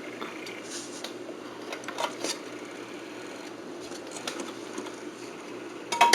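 DVD player's disc drive whirring steadily as it tries to read a disc, with a few light clicks and a louder clatter of clicks near the end.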